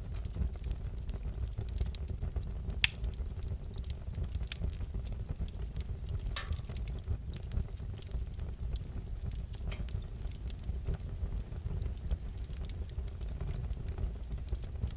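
Wood fire crackling in a fireplace: a steady low rumble with scattered sharp pops and ticks, one louder pop about three seconds in.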